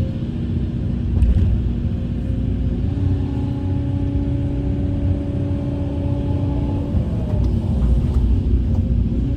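Heavy earthmoving machine's diesel engine running with a steady low rumble. A steady higher whine joins about three seconds in, bends in pitch and fades around seven seconds.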